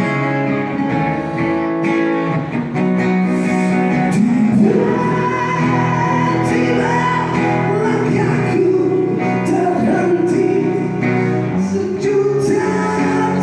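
Band music from a live performance of a Malay pop song, in a stretch without clear sung words: steady held chords with a wavering lead melody line over them.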